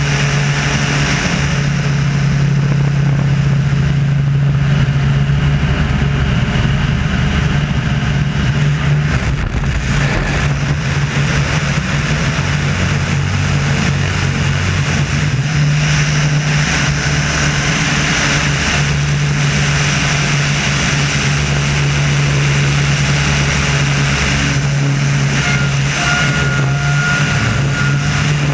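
Wolf Pitts Pro aerobatic biplane's engine and three-blade propeller running steadily, with small shifts in pitch as it manoeuvres. Wind rushes over the microphone of a camera mounted outside on the wing.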